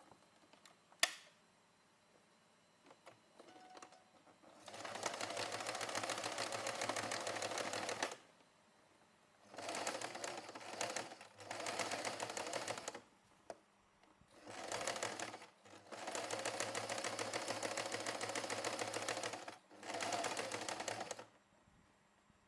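Sewing machine stitching in five bursts of one to four seconds each, a rapid even rattle, after a single sharp click about a second in.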